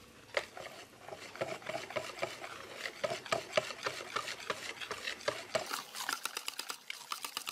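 Wire whisk beating choux-style pancake batter in a bowl, its wires clicking rapidly against the bowl's side. This is boiling water being whisked into kefir batter. The strokes come faster near the end.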